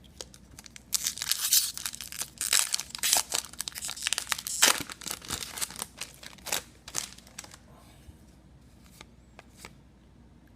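Trading-card pack wrapper being torn open and crinkled: a dense run of crackling and tearing for about four seconds, thinning to a few scattered clicks and rustles, then quiet near the end.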